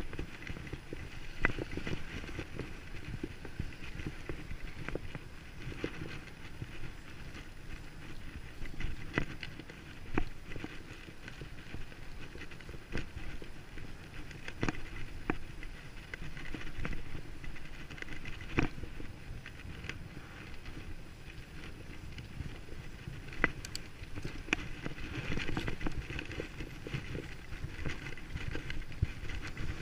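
Bicycle being ridden over rough ground: tyre and drivetrain noise with frequent irregular sharp knocks and rattles, and the rider breathing hard.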